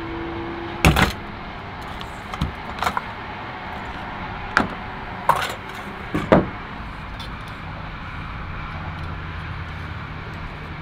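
Camp-stove gear being handled and set down on a truck's bed-liner tailgate: a handful of sharp clicks and knocks, about five over the first six seconds, over a steady low background rush.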